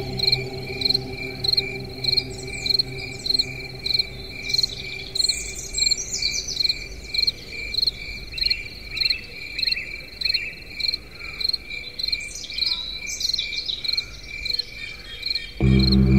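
A chorus of chirping night insects: one steady high chirp repeating evenly, about three times every two seconds, with quicker trilled chirps over it. A low musical drone fades out at the start, and music with a strong bass comes in abruptly near the end.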